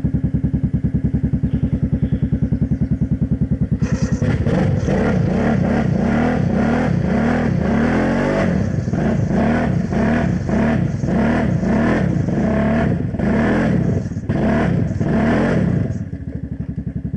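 Kawasaki Brute Force 750 ATV's V-twin engine idling, then from about four seconds in revved hard in repeated rising and falling surges as the stuck quad churns its mud tires in thick mud, dropping back to idle near the end.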